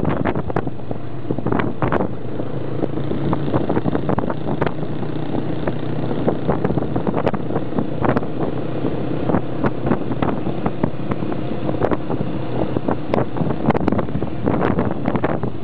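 Several small motorcycles running together at steady cruising speed, a continuous low engine drone, with wind buffeting the microphone in short crackles.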